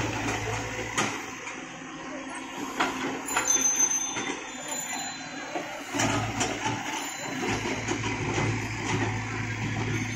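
Caterpillar E120 hydraulic excavator's diesel engine running under working load, with clanks and knocks of the bucket and boom digging through rubble. The engine's low drone is heavy in the first second and again from about halfway on.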